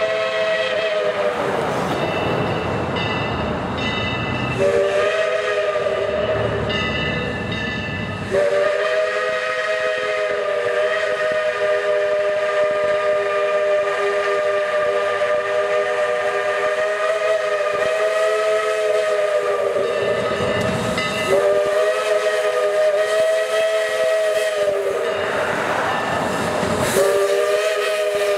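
Chime steam whistle on ex-Southern Railway #154, a 2-8-0 steam locomotive, blowing several long blasts separated by short breaks. Steam hiss and running noise fill the gaps.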